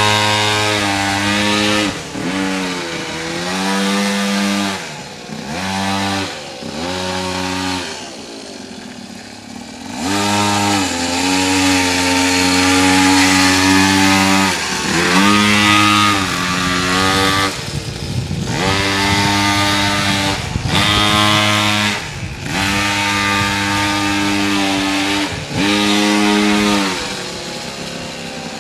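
Small 50cc two-stroke mini moto engine revving up and falling back again and again as it is ridden, with a longer drop to a low idle about a third of the way through. Its clutch has gone.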